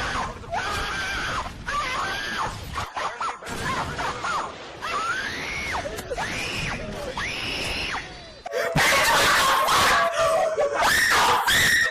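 A voice screaming over and over, each cry rising and falling in pitch. About eight and a half seconds in, it gives way to a louder, harsher burst of noise.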